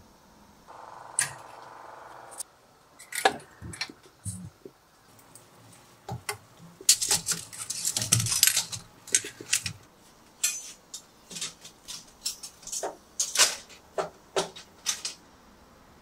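Stainless steel utensils, hooks and a steamer basket clinking and clattering against each other and the pot as they are loaded in, in scattered sharp clinks with a denser rattling burst about seven to nine seconds in.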